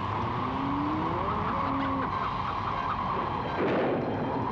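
Storm noise: a steady rushing of wind and water, with a thin whistling tone that rises and then falls about a second in, and a louder surge near the end.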